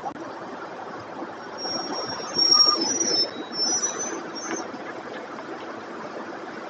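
City street traffic noise with buses close by. The traffic gets louder between about two and four and a half seconds in, with a few brief high squeals in that stretch.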